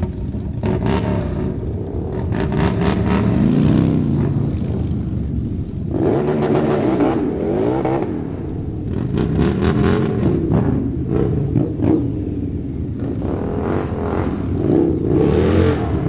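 A group of motorcycles riding and revving together, several engines overlapping, their pitch rising and falling as they swell and fade.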